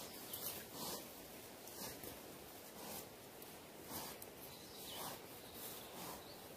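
Faint short scraping strokes, about one a second: a small knife cutting at stems and brush in dry leaf litter.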